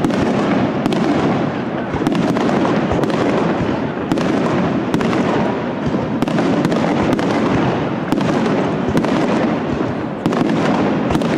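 Aerial firework shells bursting in a dense, continuous barrage: many sharp bangs every second over a steady crackling din, with a fresh loud burst about ten seconds in.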